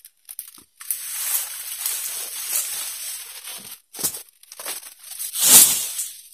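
Cut oil palm fronds rustling and scraping as they are dragged through dry leaves and undergrowth, with a few snaps about four seconds in and a louder burst of rustling near the end.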